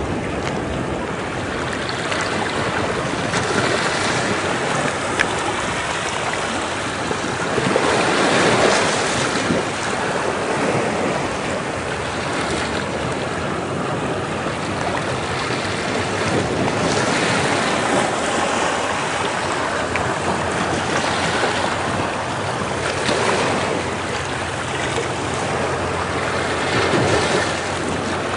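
Ocean waves washing against rocks, a continuous surf noise that swells as each wave breaks, about four times.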